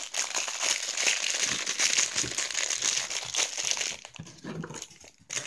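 Crinkly plastic toy wrapper crumpling and rustling as it is unwrapped by hand, dying down about four seconds in.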